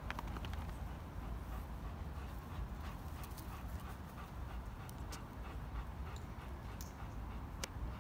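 Dogo Argentino panting, with a few sharp clicks scattered through.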